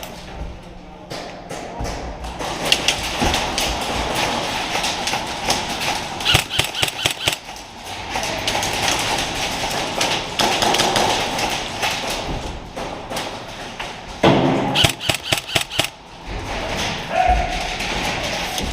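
Short bursts of rapid airsoft gunfire, a quick run of sharp clicks several times a second, over shuffling movement noise. The loudest burst comes about 15 seconds in.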